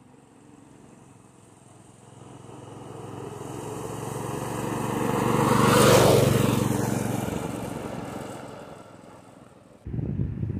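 Predator 212 single-cylinder four-stroke engine on a homemade minibike riding past: it grows louder as the bike approaches, is loudest as it passes about six seconds in, then fades away. The engine is held below full revs because the throttle cable does not pull the throttle wide open, as the builder says. Near the end a sudden rush of wind noise on the microphone comes in.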